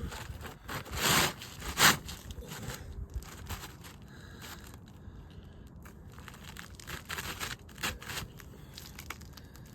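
A new roof shingle being worked into place under the course above, scraping and rasping against the neighbouring shingles, with two loud rasps about a second in and softer scraping after.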